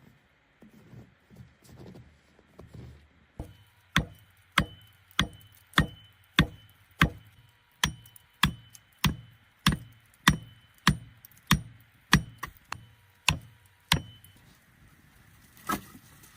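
A steady run of sharp blows from a tool striking wood, about one every 0.6 seconds, with a faint ringing under them. Softer knocks come first, and one more knock sounds near the end.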